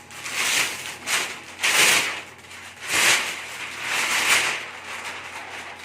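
Gift packaging being torn open by hand: about six rough ripping or crinkling bursts of paper or plastic, each roughly half a second long.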